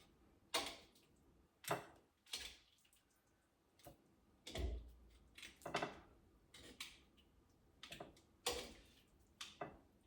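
Light clinks and knocks of a kitchen utensil against a metal pot and a plate, about ten separate strikes spaced roughly a second apart with one duller thump midway, as blanched chicken pieces are lifted out of the water onto a plate.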